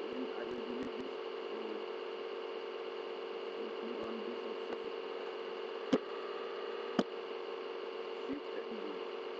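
Two sharp computer-mouse clicks about a second apart, over a steady background hiss and hum from the recording microphone.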